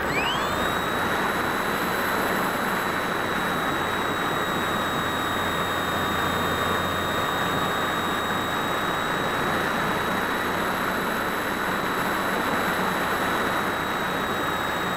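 Phoenix 1600 RC glider's electric motor and propeller spinning up with a rising whine in the first half second, then holding a steady high whine. A constant rush of wind on the wing-mounted camera runs under it.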